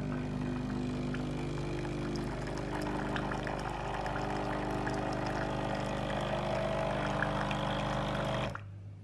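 Breville Barista Express espresso machine's vibration pump humming steadily as it pushes hot water through the group head, with the stream splashing into a cup. The pump cuts off suddenly near the end.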